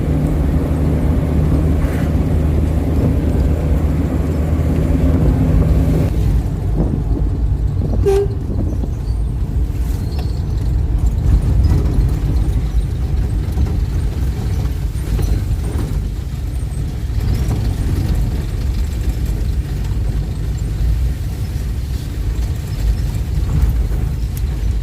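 Motor vehicle on the move: steady engine and road rumble, with a held engine drone for the first several seconds that then gives way to plain rumble.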